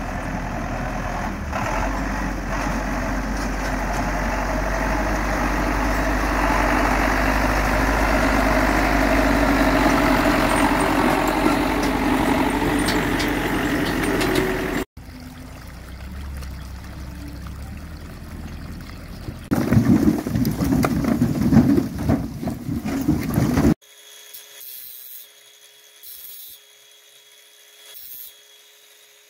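A farm tractor's engine runs steadily as it drives through mud towing a dump trailer, growing louder as it comes closer, then breaks off at a cut. It goes on more quietly, with a louder, rougher stretch about 20 seconds in. It gives way near the end to a quiet outro with a steady tone and faint ticks.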